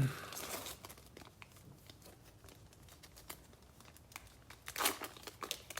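Trading-card pack wrapper crinkling and rustling in the hands as a pack is opened: faint scattered crinkles and clicks, with a louder rustle near the end.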